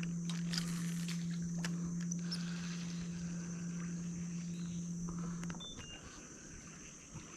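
A low, steady hum that cuts off about five and a half seconds in, over a constant high insect drone from the mangroves and a few faint clicks.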